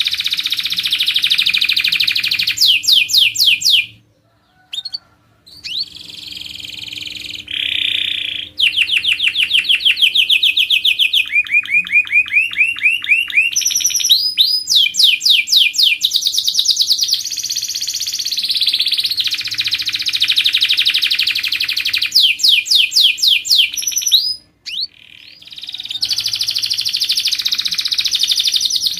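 Domestic canary singing a continuous contest-style song of rapid trills and rolls, with runs of quickly repeated sweeping notes. The song breaks off briefly twice.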